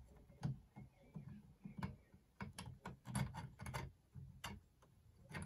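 Soft, irregular clicks and taps of 3D-printed plastic parts knocking together as a flywheel cage is worked down over the flywheel motors.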